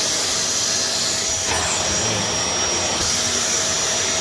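Hitachi CV-950F vacuum cleaner running steadily: an even airflow noise with a thin, steady high-pitched whine.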